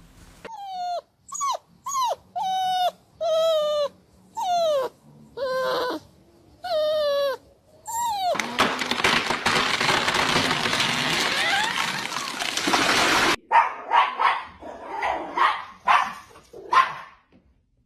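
A dog giving a series of short, high whining yelps, each falling in pitch. Then comes a few seconds of loud hissing noise that cuts off suddenly, followed by a run of quicker yips.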